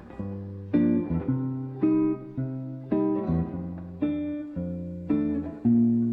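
Music: an acoustic guitar plucking chords, a new chord about twice a second and each left to ring, in an instrumental passage of a Korean-language song with no singing.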